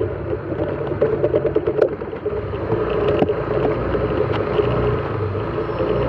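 Motorcycle engine running steadily while riding along, with a spell of rattling clatter between one and two seconds in as it rolls over a striped road hump.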